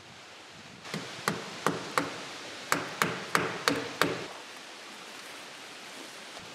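Hammer driving nails: nine sharp blows in two quick runs of four and then five, about three a second, each with a short ring.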